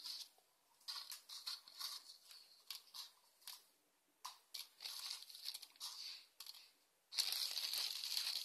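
Plastic wrapping being handled, crinkling and tearing in short irregular rustles, with a pause about halfway through and louder, steadier crinkling from about seven seconds in.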